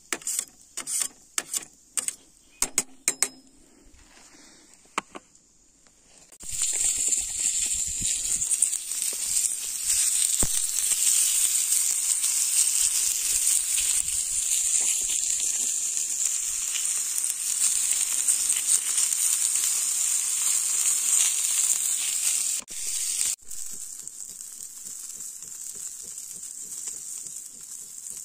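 Meat sizzling on a charcoal grill, a steady hiss that comes in loudly about six seconds in and turns softer for the last few seconds. Before it come a series of sharp metal clicks, tongs knocking against the steel grill bars.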